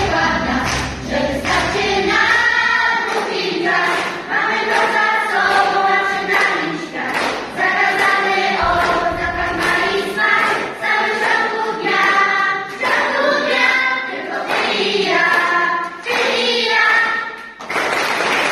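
Mixed choir of children and adults singing together. A low accompaniment drops away after about a second and a half, leaving mostly the voices.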